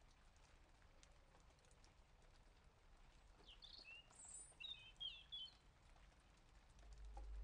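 Near silence: faint room tone with a few short, faint bird chirps about halfway through, and a low hum starting to rise near the end.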